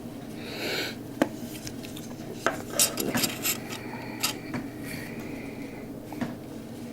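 Sharp metallic clicks and clinks of a spring-assisted liner-lock karambit folding knife being handled, its blade snapping open and being closed several times, with a faint ringing tone for a couple of seconds in the middle.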